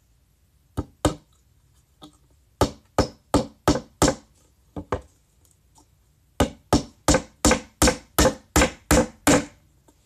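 Hammer tapping small nails into a wooden beehive frame: a few scattered blows, then a quick run of five, and near the end a steady run of about ten taps at roughly three a second.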